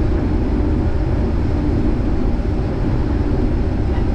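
Vehicle engine running steadily with road rumble, heard from inside the cab while driving.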